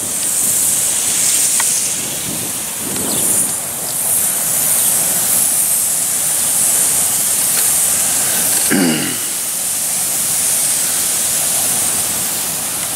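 A steady high hiss that swells and fades a little, with a short falling sound about three seconds in and again about nine seconds in.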